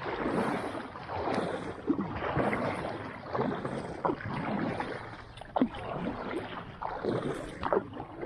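Kayak being paddled across calm water: a swish of water with each paddle stroke, coming about once a second, with a few light splashes.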